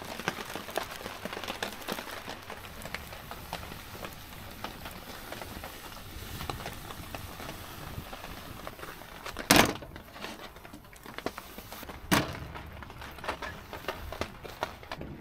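Campfire crackling under a grill grate as a steady fine patter of small pops, with two sharp knocks, about nine and a half and twelve seconds in.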